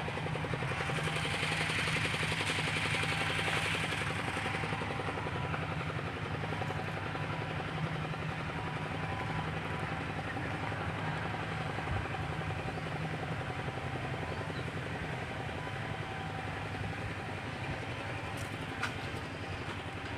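An engine running steadily with a fast, even pulse. A hiss swells in the first few seconds and fades.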